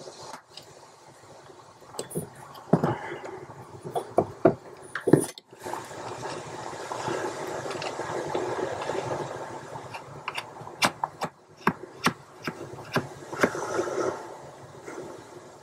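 Nut and washer being fitted by hand onto a clutch master cylinder mounting stud in a van footwell: scattered small metal clicks and taps, with a stretch of rustling and scraping in the middle.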